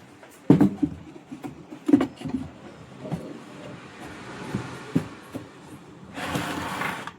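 Scattered light knocks and clicks of hard objects being handled, strongest about half a second and two seconds in, then about a second of hissing scrape near the end.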